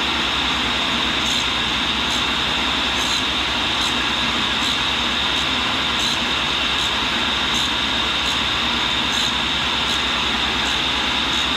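Cincinnati tool and cutter grinder running, its cup wheel grinding the tip of a carbide drill held in the fixture: a steady hiss with a strong high-pitched edge, at the last light passes as the cut nears its zero. A faint tick comes about every second and a half.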